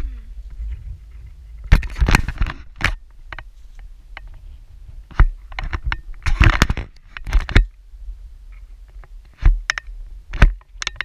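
Irregular footsteps scuffing and crunching on a rocky, gravelly trail, some in quick clusters, over a steady low wind rumble on the microphone.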